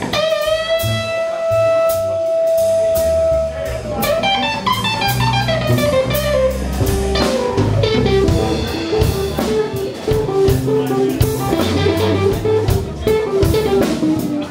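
Live blues played by an electric guitar, bass guitar and drum kit. The guitar holds one long note for nearly four seconds, then plays falling runs over the bass line and drums.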